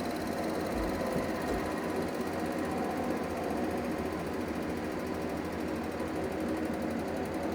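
Bandsaw running steadily.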